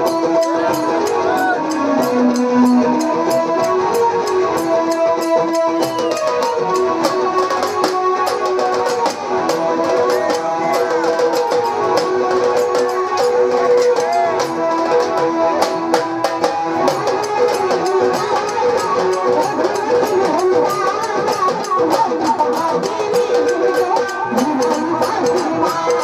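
Live Marathi lavani music: a steady electronic keyboard melody over a running drum beat.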